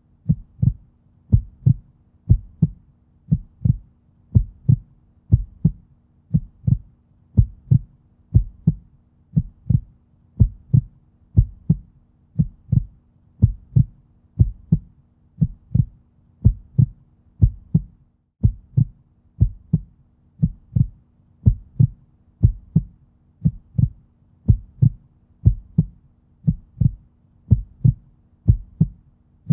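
Heartbeat-like double thump, lub-dub, repeating steadily roughly once a second, over a faint steady hum.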